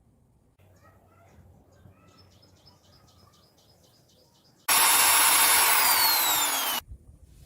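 A small electric motor whirs loudly for about two seconds, starting and stopping abruptly, with a whine that falls in pitch as it runs.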